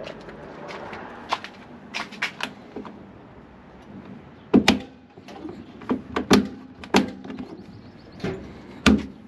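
A locked door being tried: a series of sharp clunks and knocks, four of them loud, in the second half. It stays shut, still locked out.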